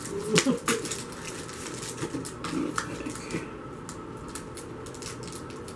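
Pokémon booster packs and cards being handled: a run of light crinkles and clicks from the foil wrappers and cards, busier in the first half.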